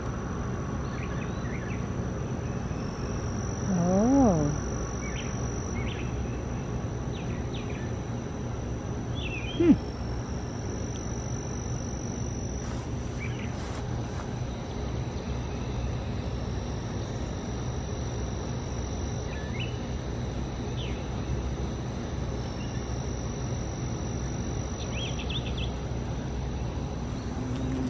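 Outdoor garden ambience: steady background noise and low hum with scattered faint bird chirps and a high insect-like tone that comes and goes. A short low wavering tone sounds about four seconds in, and a sharp click near ten seconds.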